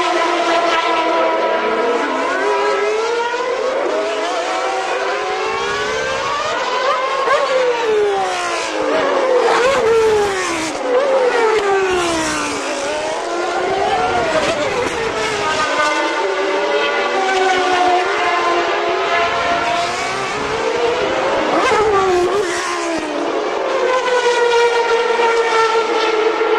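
Several 1992 Formula 1 cars' high-revving racing engines going past one after another, their sounds overlapping. The engine pitch repeatedly drops and then climbs again as the cars slow for the corner and accelerate away.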